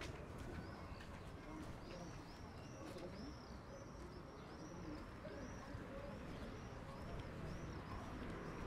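A small bird repeating a short, high chirp that rises and falls, about twice a second, with lower bird calls underneath. Faint outdoor street background.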